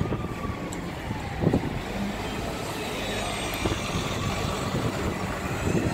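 Alexander Dennis Enviro 300 single-deck bus driving past close by, its diesel engine running steadily under a low rumble of engine and road noise.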